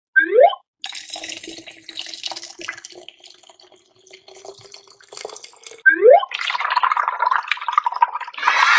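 Cartoon sound effects: watery splashing and dripping with scattered clicks, broken by two quick rising swoops, one right at the start and one about six seconds in.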